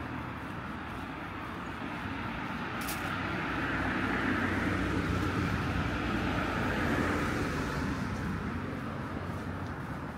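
Street traffic noise as a vehicle passes by. Its sound swells from about two seconds in to a peak midway through and fades near the end.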